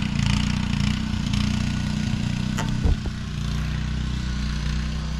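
An engine running steadily, with a short knock a little past the middle.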